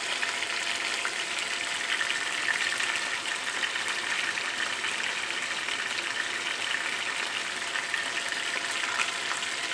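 Two whole fish pan-frying in shallow oil in a nonstick pan, sizzling steadily with fine crackles.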